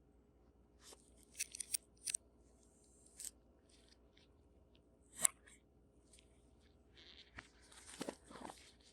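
Smartphone retail packaging being handled: short crinkles and rustles with sharp clicks and taps. The loudest is a single click about five seconds in, and a longer rustle comes near the end.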